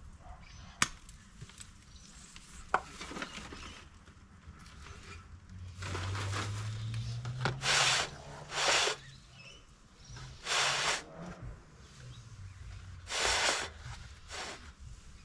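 A hand tool scraping between an azalea's soil root ball and its plastic pot in five short scraping strokes, after two sharp clicks in the first few seconds.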